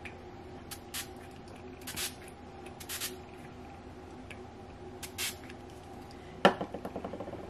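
Urban Decay All Nighter setting spray misted onto the face from its pump bottle: several short hissing spritzes, roughly a second apart, with a louder one near the end.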